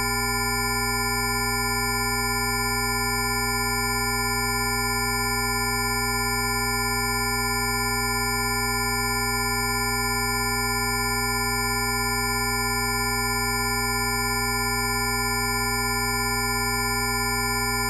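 Rife frequency tones: many pure electronic tones sounding together as one steady, unchanging drone, from a low hum up to a thin high whine.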